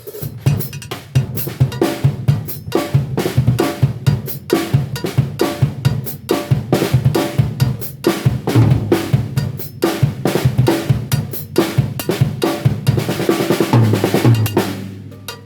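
Drum kit being played, with a giant cowbell mounted on the kit struck along with the drums, in a fast, steady run of hits that stops shortly before the end.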